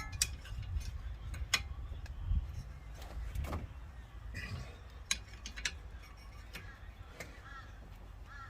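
Ratchet torque wrench clicking in short, irregular strokes as a brake caliper bracket bolt is tightened to 65 foot-pounds.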